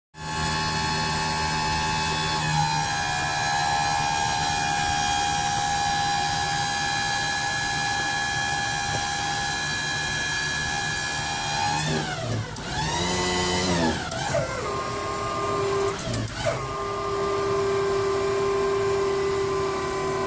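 Electric hydraulic pump motor of a battery-powered Prime Mover SC30 forklift whining steadily as it raises the mast. About twelve seconds in, the pitch swoops down and up several times, then settles into a steady whine again.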